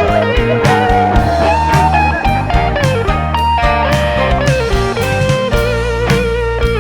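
Background music: an instrumental break in a song, with a lead electric guitar playing bent notes over steady drums and bass.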